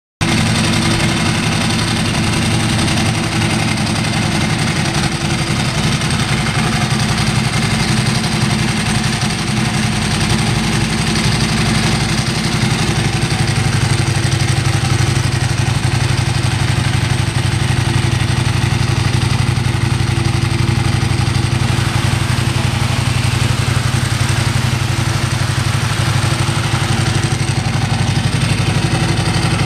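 2005 Ducati Multistrada 1000 DS's air-cooled L-twin engine idling steadily.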